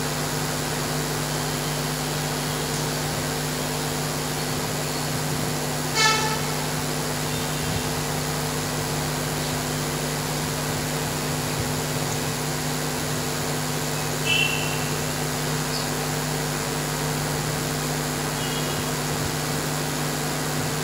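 Steady electrical hum and hiss from the church's sound system, with no speech over it. A single short pitched toot, like a vehicle horn, comes about six seconds in, and two faint brief high chirps follow later.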